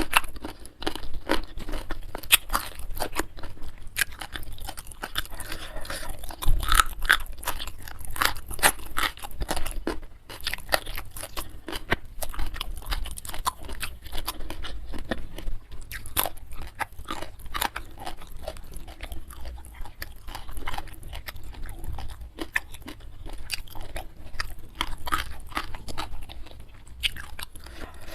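Close-miked chewing and crunching of crisp food in the mouth, a dense, irregular run of crunches and bites.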